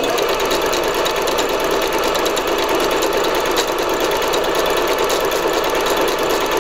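Singer Patchwork 7285Q computerized sewing machine running steadily, stitching pattern number 19 through fabric.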